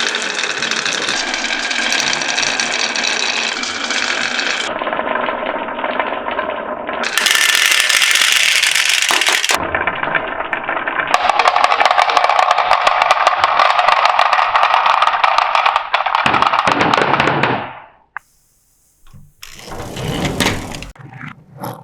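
Many marbles rolling and clattering down wooden marble-run tracks in a dense, continuous rattle. It stops abruptly near the end, followed by a couple of short rattles.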